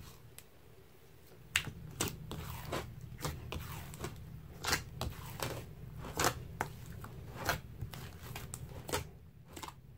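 Thick slime with sand mixed in being kneaded and squeezed by hand in a bowl, making a run of sharp wet clicks and pops, about one or two a second, starting about one and a half seconds in.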